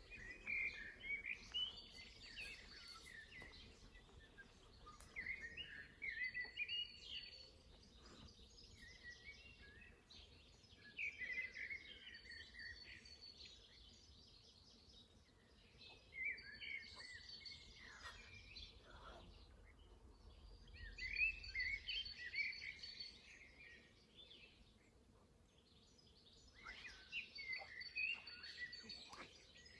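A songbird singing warbling phrases of about two seconds each, repeated every few seconds with pauses between them.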